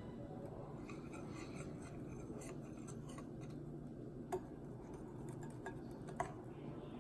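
Whisk stirring pancake batter in a mixing bowl, with faint scraping and light clicks of the wires against the bowl, and two sharper taps, one a little past the middle and one near the end.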